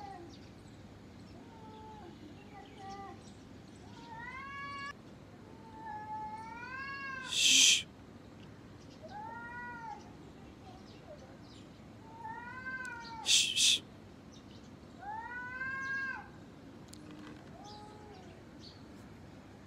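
Two cats, a gray tabby and a ginger, yowling at each other in a fight standoff: long drawn-out yowls that rise and fall in pitch, one every two to three seconds. Two short, loud hisses come about seven and thirteen seconds in.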